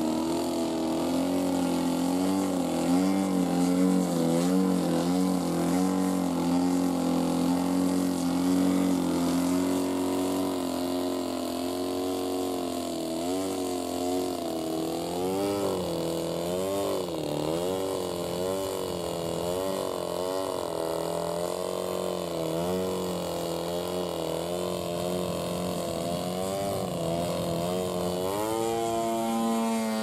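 Gas engine and propeller of a radio-controlled aerobatic model plane running at high power. The pitch holds steady at first, then wavers up and down again and again as the throttle is worked to hold the plane in a nose-up hover, and climbs near the end.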